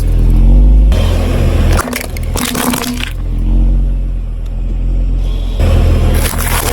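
A car's engine running low under objects crunching and cracking beneath its tyres, in one burst about two seconds in and another near the end.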